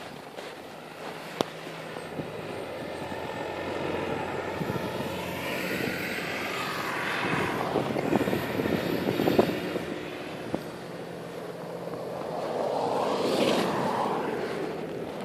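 Motor vehicles driving past on a snowy street, their engine and tyre noise swelling and then fading, the pitch dropping as they pass. A second vehicle swells past near the end.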